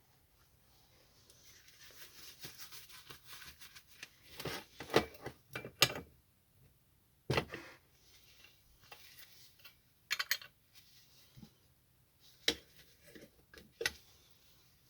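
Small clicks, scrapes and a few sharper knocks from hand tools and metal parts being handled while an oxy-acetylene cutting torch is taken apart. A patter of light ticking comes first, then a cluster of louder knocks and several single clicks spaced a few seconds apart.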